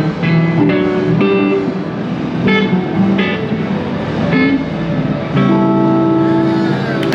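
Two amplified electric guitars, one a Fender Stratocaster, trading short picked blues licks. About five and a half seconds in they settle onto a chord that is held and rings out.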